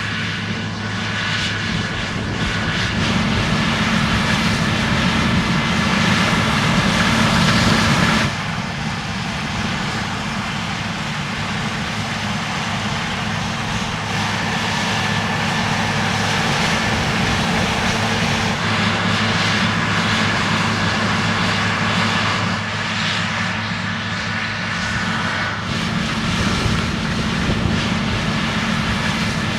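New Holland combine harvester running at work, a steady engine drone with a high whine from the threshing machinery. The sound changes abruptly about eight seconds in and again near the end.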